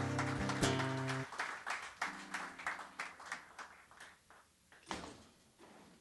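Guitars' final chord ringing out for about a second, with a short chord about two seconds in, while audience clapping thins out and fades away.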